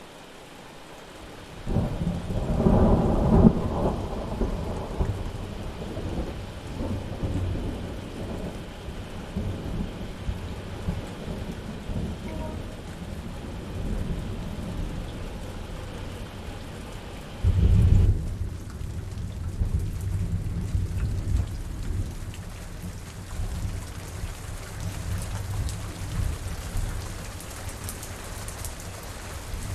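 Steady rain with thunder: a loud thunderclap about two seconds in rolls off into rumbling, and a second loud clap comes about eighteen seconds in, followed by more low rumbling.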